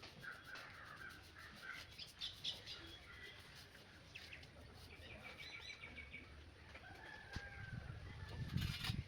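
Faint bird calls: scattered short high chirps and a quick trill, likely from backyard fowl, with a low rumbling noise building near the end.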